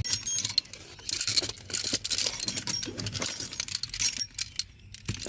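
Small metal pieces jingling and clinking against each other, handled in several short bursts with a bright ringing.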